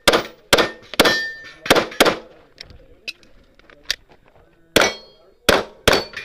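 A fast string of about nine pistol shots, five in quick succession, then a pause of about two and a half seconds, then four more. Steel targets ring briefly when struck.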